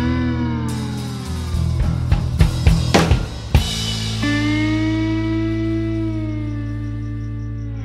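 Background rock music: drum kit beats over a steady bass for about three and a half seconds, then a long held note with a slow pitch bend.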